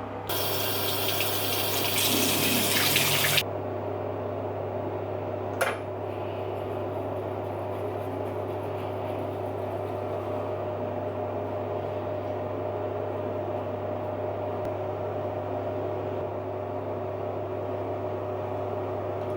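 Water running from a tap for about three seconds and stopping suddenly, followed by a single click and then a steady hum.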